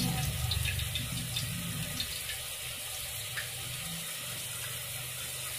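Hot cooking oil hissing steadily in an aluminium kadai as chilli powder is dropped into it.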